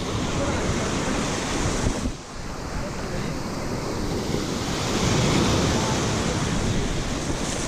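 Ocean surf washing up on a sandy beach, mixed with wind buffeting the microphone. The wash dips briefly about two seconds in, then swells again around five seconds in.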